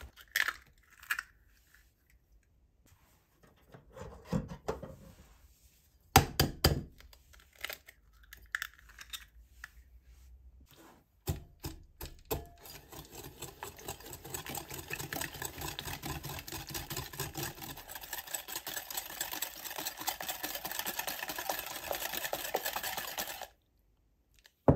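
Eggs cracked on the rim of a glass bowl, their shells breaking with a few sharp cracks. Then a wire whisk beats the eggs and sugar, rattling rapidly against the glass for about twelve seconds before stopping suddenly.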